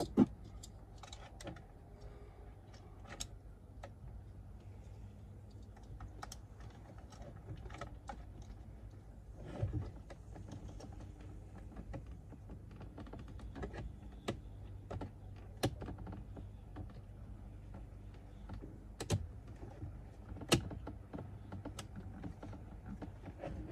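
Scattered sharp plastic clicks and taps from hands handling a wiring connector and trim in the instrument-cluster opening of a BMW X5 E70 dashboard, over a low steady hum. The sharpest click comes just after the start.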